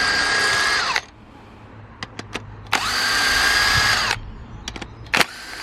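Electric power driver spinning out cylinder head bolts in short runs: each run whines up to a steady pitch and winds down as the trigger is released. One run ends about a second in, another runs from about three to four seconds, and a third starts near the end, with a few light metallic clicks in between.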